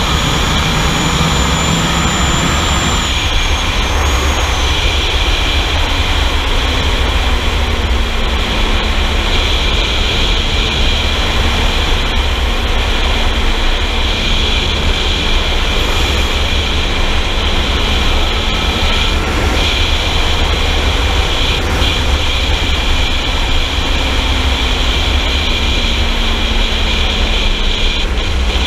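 Sport motorcycle ridden at highway speed, with heavy wind rush over the microphone and the engine note faint beneath it. The engine note sags slowly in pitch as the bike slows.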